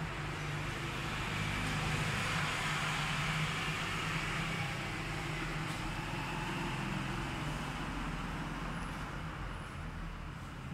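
A motor vehicle passing on the street, its engine and road noise swelling over the first few seconds and then slowly fading away.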